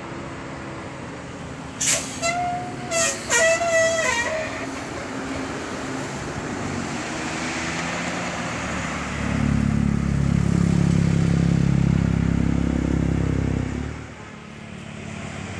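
Bus 'telolet' multi-tone Basuri horn playing a quick tune of short toots about two seconds in. About nine seconds in comes a loud, deep, low sound held for about five seconds that cuts off suddenly, over steady traffic noise.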